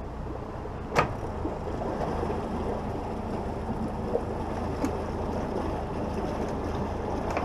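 Honda 150 four-stroke outboard idling steadily, with a sharp knock about a second in and a few lighter knocks later.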